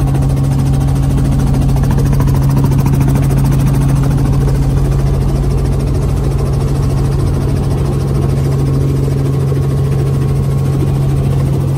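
Small helicopter's engine and rotor running steadily, heard loud from inside the cabin as it comes in low to land, with a constant low hum and a fast rotor flutter.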